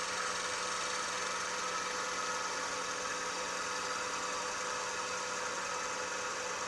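Wood lathe running steadily without cutting: a constant motor hum over an even hiss, picked up by a DJI Mic Mini wireless mic at −12 gain.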